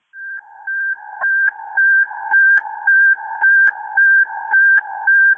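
Fire station dispatch alert tone: a high–low two-tone signal alternating about twice a second, growing louder over the first couple of seconds and then holding steady. It is the alert that calls crews to a run.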